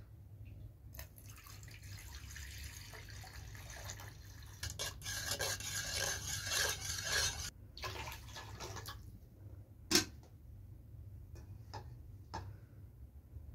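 Water poured from an aluminium kettle into a stainless steel bowl, then a spoon stirring the water and clinking against the bowl's side. About ten seconds in, a single sharp metal clink is the loudest sound.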